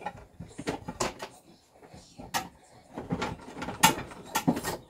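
Dishes and kitchenware clinking and knocking as they are handled and packed, an irregular string of sharp clacks, the loudest near the end.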